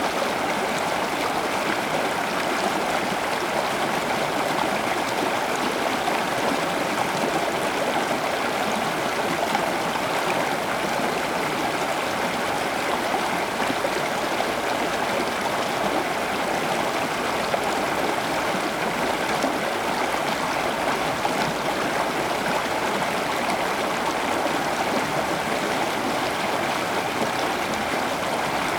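Steady running water, an even rushing and trickling that holds at one level.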